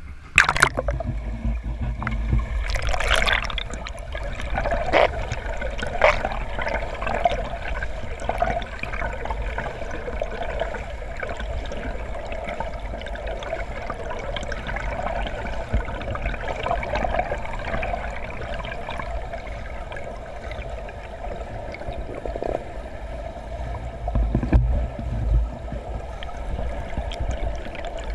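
Pool water heard through a submerged camera: a steady gurgling, rushing water sound with a low rumble. There are sharp splashes and knocks in the first few seconds and again near the end.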